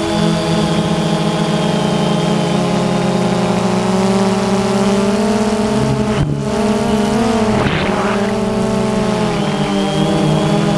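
FPV drone's electric motors and propellers humming steadily, heard from the onboard camera. The pitch dips and swings back up about six seconds in, with a short rush of noise near eight seconds.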